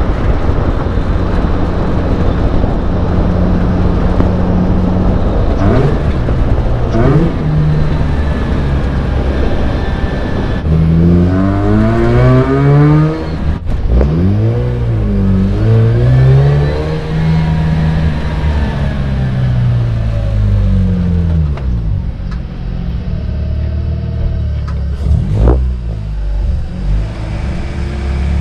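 Mazda RX-8's rotary engine heard from inside the stripped race-car cabin: a steady drone at first, then revving up and dropping back several times through the middle as the car pulls away and shifts, before settling again. A short sharp click sounds near the end.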